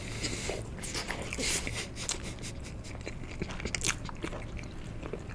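Close-miked chewing of sushi: wet mouth smacks and many small irregular clicks as the rice and fish are bitten and chewed.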